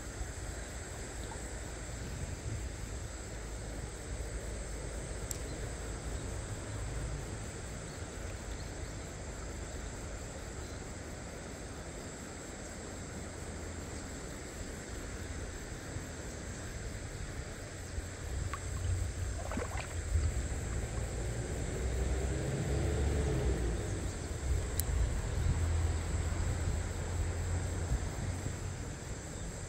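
A shallow stream running over rocks, with wind rumbling on the microphone. The rumble grows stronger about two-thirds of the way through.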